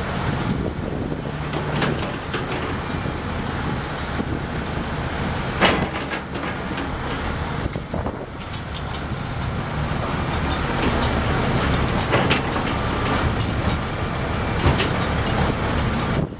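Volvo EC210C hydraulic excavator's diesel engine running steadily, with several sharp metallic knocks, the loudest about five and a half seconds in.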